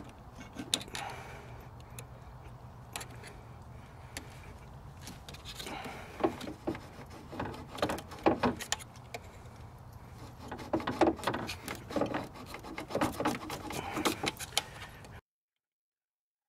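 Hand tools clicking, knocking and scraping against the rubber upper radiator hose and its spring clamp as the old hose is worked off. The sound comes in irregular clusters of small knocks and rubbing, busiest in the second half.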